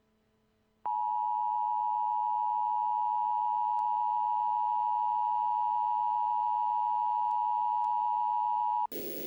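Emergency Alert System Attention Signal: a steady two-note alert tone held for about eight seconds, the warning that precedes a spoken emergency message. It starts just under a second in and cuts off abruptly near the end, leaving a faint hiss.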